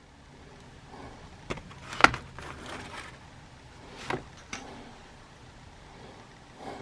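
A few scattered sharp clicks and knocks from handling, the loudest about two seconds in.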